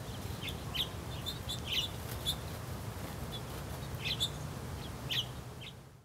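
Small birds chirping: a dozen or so short, high, scattered chirps over a faint low rumble, fading out at the very end.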